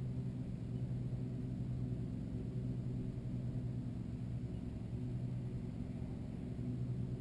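Steady low rumble of wind buffeting the microphone, heaviest in the bass, with no distinct events.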